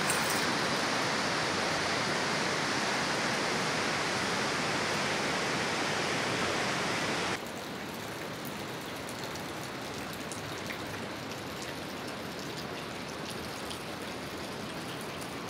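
Steady rushing of a river flowing through the valley below, dropping suddenly to a quieter level about seven seconds in.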